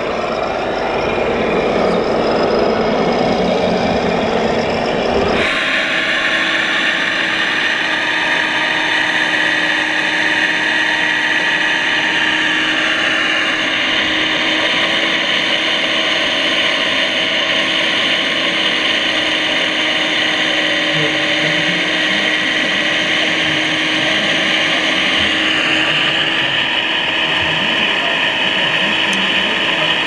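For about the first five seconds, a fuller, rougher running noise from a radio-controlled model heavy-haulage truck. Then the steady whine of the electric motors and hydraulic pumps of radio-controlled model excavators and a dump truck, several pitches at once that slide up and down now and then as the machines work.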